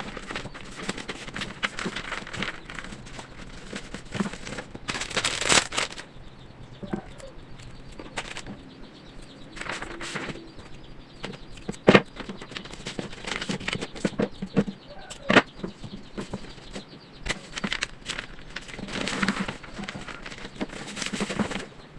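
Crinkling and rustling of wrapping being handled, with scattered sharp clicks and taps; the loudest snaps come about 12 and 15 seconds in.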